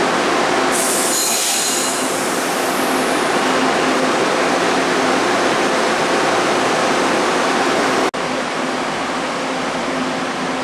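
Taiwan Railways EMU600-series electric multiple unit (EMU605) pulling out of a station, its cars rolling past with a steady rumble of wheels on rail and a steady low hum. A brief high-pitched wheel squeal comes about a second in.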